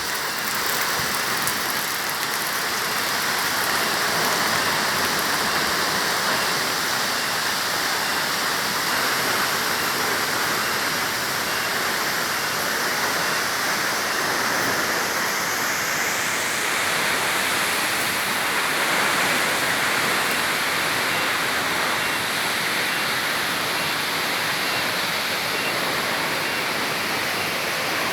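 Sedudo waterfall: a steady, loud rush of falling water.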